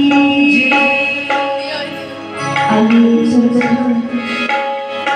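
Instrumental bhajan music: an electronic keyboard holding sustained melody notes over a steady hand-drum rhythm.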